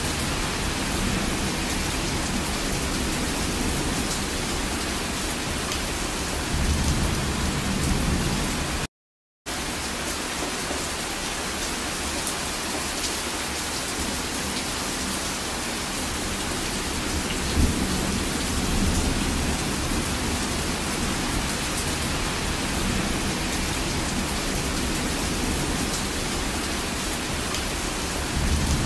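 Steady rainstorm, rain pouring in an even hiss, with low rumbles of thunder swelling about seven seconds in and again around eighteen seconds. The sound cuts out for half a second about nine seconds in.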